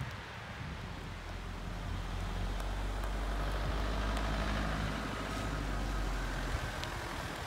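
Motor vehicle engine running close by, a steady low drone that grows louder over the first few seconds and then cuts off suddenly about six and a half seconds in.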